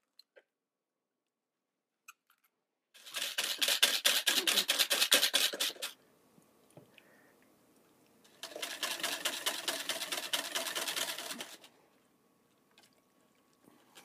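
Wire whisk beating egg and evaporated milk in a plastic container: two spells of rapid strokes against the sides, about three seconds each.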